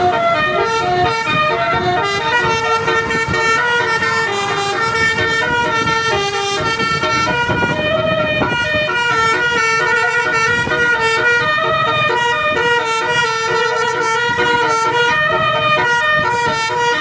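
Bus telolet horn, a set of multi-tone air horns playing a melody with notes stepping quickly from one pitch to the next, unbroken throughout.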